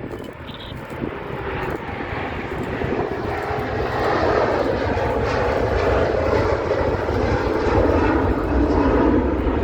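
Jet airliner's engines, a rushing noise over a deep rumble, growing louder over the first few seconds as the aircraft comes close and then holding steady.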